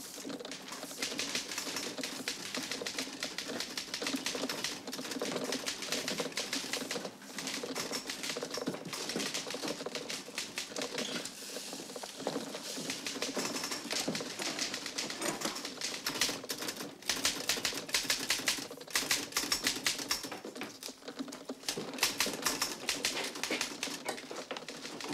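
Teleprinter clattering rapidly as it prints a message onto paper tape, with a steady hum underneath and a few brief pauses in the clatter.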